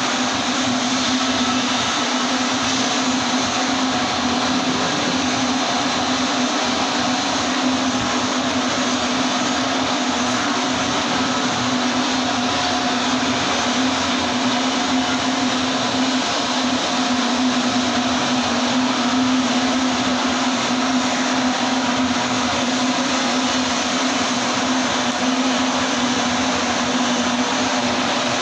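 TIG welding arc burning steadily: a continuous buzzing hiss with a strong low hum.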